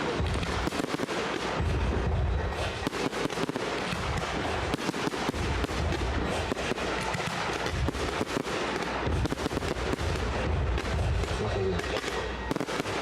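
Large fireworks display: a dense, unbroken crackle of shells and effects bursting, with deep booms from bigger shells coming and going.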